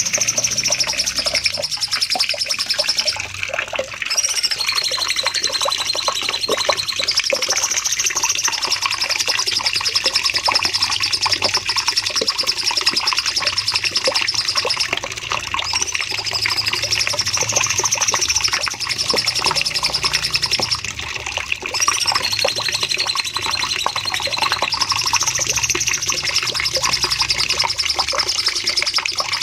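Cucak cungkok songbird singing a long, unbroken 'shooting' song: a dense stream of rapid high chatter and trills with hardly a pause.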